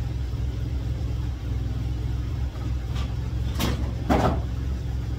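1991 Ford Ranger's engine idling steadily, with two short sharp noises about three and a half and four seconds in.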